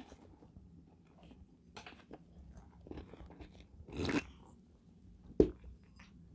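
Faint chewing and small mouth clicks. About four seconds in comes a sip from a glass mug, then a sharp knock as the glass mug is set down on the table.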